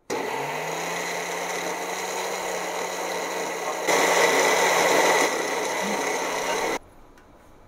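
Electric grinder with a glass jar running, grinding soaked moong dal into batter. The motor spins up as it starts, runs louder for a second or so in the middle, and cuts off suddenly near the end.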